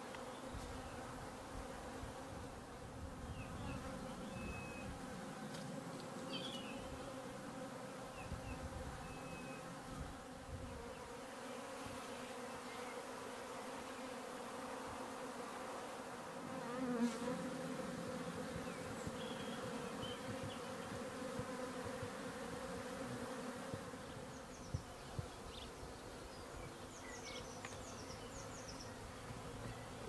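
Steady hum of a large honey bee swarm flying around the entrance of the empty hive it is moving into: the drone of thousands of beating wings, swelling briefly about halfway through.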